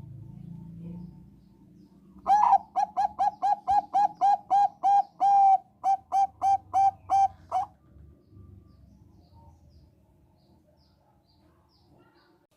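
Zebra dove of the Thai 'perkutut bangkok' strain singing one rapid, staccato cooing phrase of about twenty short coos, roughly four a second, with one longer held note near the middle, over about five seconds.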